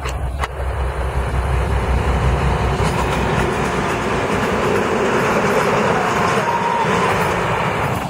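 ST44 (Soviet-built M62) freight diesel locomotive passing close by, its two-stroke V12 diesel running with a deep low pulsing rumble. About halfway through the engine sound fades, leaving the steady roar of freight wagons rolling past on the rails.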